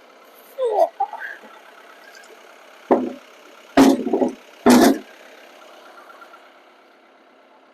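Mahindra 2638 compact diesel tractor idling steadily, with three heavy knocks about three, four and five seconds in as the 6x6 timbers are handled. There is a short squeal near the start.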